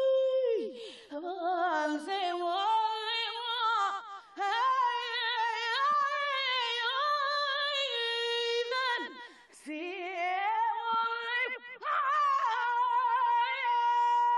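A woman singing unaccompanied, sliding through runs with vibrato, then holding a long high note near the end.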